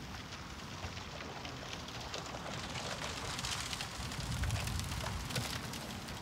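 Footsteps through dry grass and stubble, with the rustle of a trenchcoat, as many small irregular crackles over a low wind rumble.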